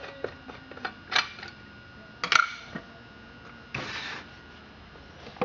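Clicks and taps from the air box cover of a Super Pro 81 chainsaw being handled and opened by hand, with the engine not running. There are a few sharp clicks, the loudest just over two seconds in, and a short scraping rustle about four seconds in.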